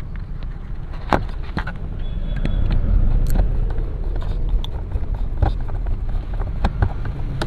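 Light clicks and taps of amplifier parts being handled and tightened by hand, over a steady low rumble that swells a little after the first couple of seconds.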